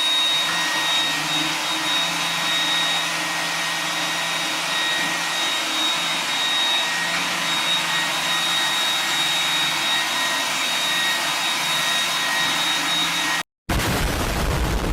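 Vacuum cleaner running steadily with a high whine. It cuts out for a moment near the end, runs again briefly, then stops.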